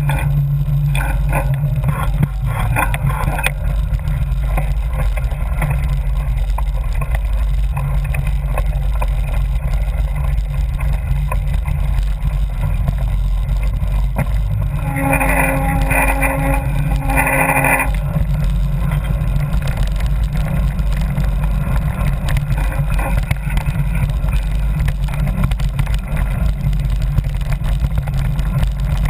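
Steady low rumble of wind and trail vibration on a camera riding on a mountain bike along a dirt trail. About halfway through, a short pitched tone sounds twice.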